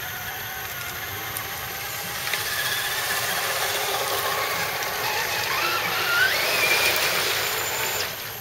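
Electric drive motor and gears of an RC scale crawler truck whining, the pitch wavering up and down with the throttle, over water splashing as it drives through a muddy puddle. It grows louder toward the end and drops away suddenly about eight seconds in.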